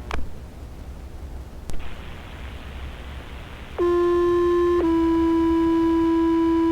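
Scanner radio clicks twice, then the channel hiss opens and a fire department two-tone sequential pager alert sounds: a steady tone for about a second, then a slightly lower tone held to the end. These are the page-out tones that set off firefighters' pagers ahead of a dispatch, heard through a handheld scanner.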